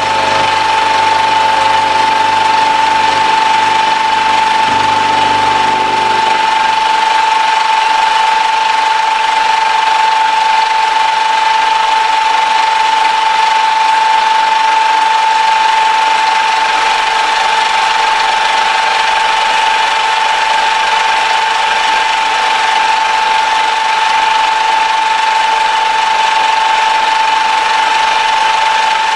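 Milling machine running with a steady high whine, its end mill cutting a workpiece held in a chuck on a rotary table. A low rumble under it drops away about six seconds in.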